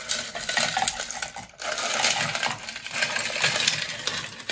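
Ice cubes poured from a measuring jug into a glass pitcher of horchata, clattering and clinking against the glass and each other, with a brief break about one and a half seconds in.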